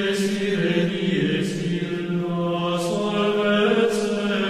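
Chant-like choral music: voices holding long, steady notes that change pitch every second or two.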